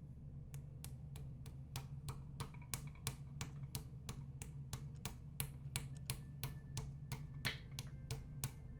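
Light, rapid taps, about three a second and growing louder toward the end, of a mallet on a piston crown, driving the piston through a ring compressor down into a cylinder of a BMW M50 engine block. A steady low hum sits underneath.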